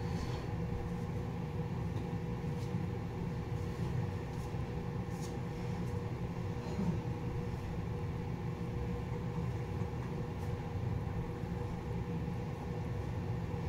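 A steady low rumble with a faint constant hum and a few soft ticks.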